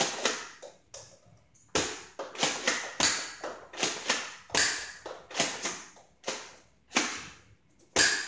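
Nerf Zombie Strike Brainsaw dart blaster worked and fired repeatedly: a series of sharp plastic clacks, often in close pairs, about one to two a second.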